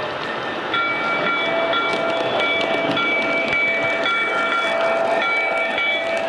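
Lionel New York Central S2 electric model locomotive sounding its electronic horn in a series of long and short blasts from about a second in. Under the horn, the train rolls steadily on the track.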